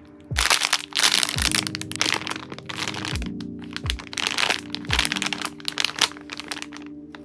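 Plastic packaging crinkling and crackling as squishy toys in clear plastic wrap and a printed plastic bag are handled. It is loud and busy from about half a second in until near the end, over background music with a steady beat.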